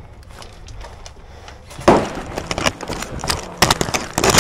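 Knocks and rustling: a sudden loud knock about two seconds in, then scattered sharp knocks and scraping that grow louder and more frequent near the end.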